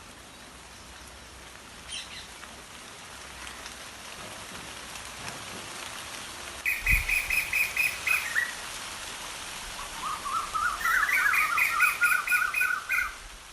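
A songbird calling in two rapid runs of repeated chirps, one lasting about a second and a half near the middle and a longer, stepped run of notes near the end, over a steady background hiss.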